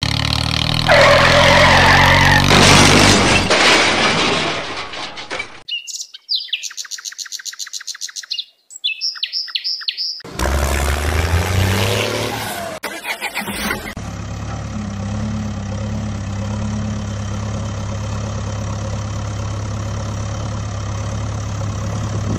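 Dubbed engine sound effects: an engine revving and running for the first few seconds, a stretch of rapid, evenly spaced chirps in the middle, and a steady engine drone through the last eight seconds or so.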